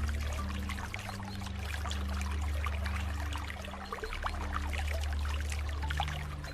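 Water flowing and trickling, a steady splashing and gurgling. Underneath it runs a low steady drone of held tones that shifts pitch about half a second in, around four seconds in and near six seconds.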